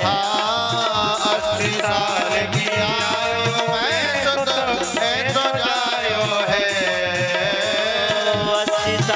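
Instrumental interlude of a Hindi devotional bhajan: a melody instrument plays over a steady hand-drum rhythm, with no singing.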